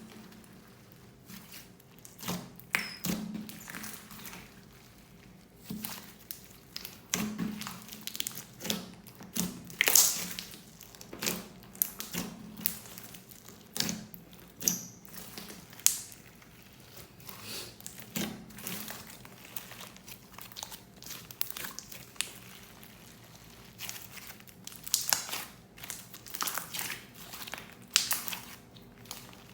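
Handling sounds of slime being made with plastic piping bags: irregular crinkling and crackling, with short clicks and small taps coming in uneven bursts.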